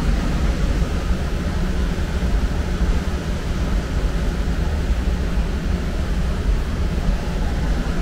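Trane TAM9 air handler's variable-speed blower running at high speed, a steady low rush of air. It is working against high external static pressure from an undersized 20x20 media filter cabinet on a 4-ton system.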